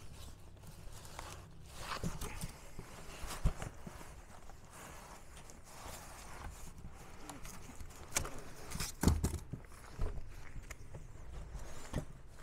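Cardboard box and styrofoam packing scraping, rustling and knocking as a heavy reel-to-reel deck is tilted and slid out of its box. Several dull thumps come through; the loudest is about nine seconds in.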